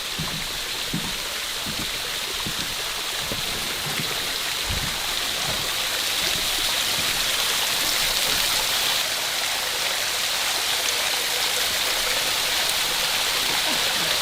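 Small mountain waterfall cascade: water rushing steadily over rocks, growing a little louder over the first half.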